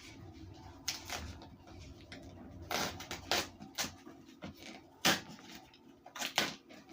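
Baked cornstarch being bitten and chewed: a series of sharp, separate crunches, about seven, the loudest one about five seconds in.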